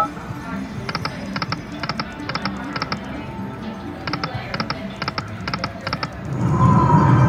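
TimberWolf slot machine running two free-game spins, each ending in a quick run of five electronic reel-stop ticks. Near the end the machine's win jingle swells up for a line win.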